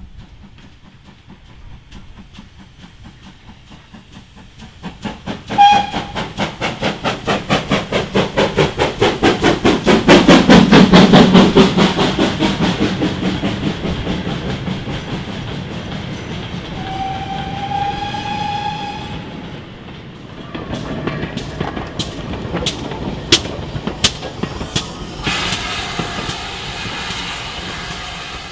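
GWR Manor-class 4-6-0 steam locomotive 7822 'Foxcote Manor' starting a goods train. A short whistle blast about five seconds in leads into a run of loud, even exhaust beats that swell and then fade. A second, longer whistle rises slightly around two-thirds of the way in, and the wagon wheels then click over the rail joints as the train passes.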